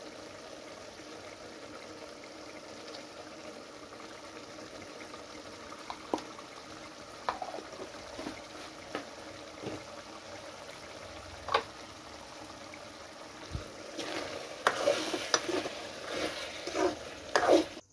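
Chicken and gongura curry simmering in an aluminium kadai on a gas burner: a steady hiss with occasional single pops. About fourteen seconds in, a steel spoon stirs it, clattering and scraping against the pot.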